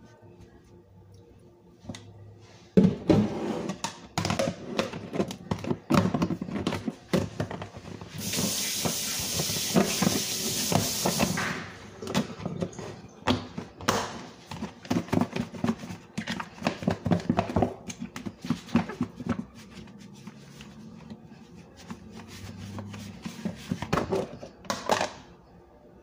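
A lidded plastic tub being handled on a countertop while raw chicken is coated in flour: repeated knocks, taps and thunks of the tub and its lid. Partway through comes a steady hiss lasting about three seconds.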